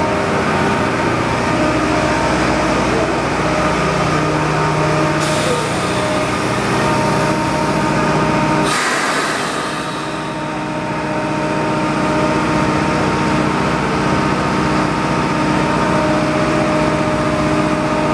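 Subway track-maintenance work car's engine running with a steady hum and whine. Air hisses out twice, about five and nine seconds in.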